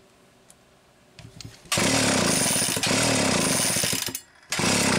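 Homelite 360 chainsaw engine being turned over for an ignition test with the spark plug out in a tester, a loud fast rattle starting a little under two seconds in, breaking off briefly about four seconds in and starting again. The ignition is arcing audibly while no spark shows at the test plug: a poor contact somewhere in the makeshift test leads.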